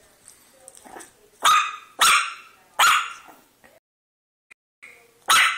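Boston Terrier puppy barking: four short, high yaps, three in quick succession about a second and a half in and one more near the end.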